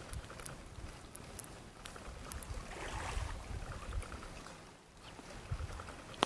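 Small waves washing on a lake shore, with wind rumbling low on the microphone. The wash swells about three seconds in, and a few faint sharp clicks come in the first half.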